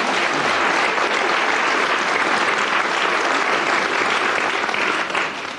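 Studio audience applauding, a steady clatter of many hands that dies away near the end.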